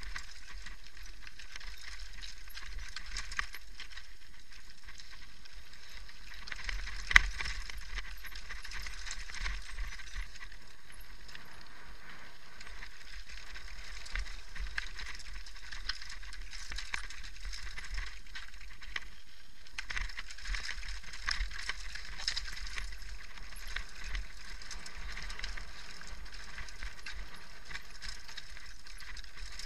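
Mountain bike descending a rocky, gravelly trail: tyres crunching over loose stones, with continual rattling and clinking of the bike and a low rumble throughout. A sharp knock about seven seconds in, as from a hard hit on a rock.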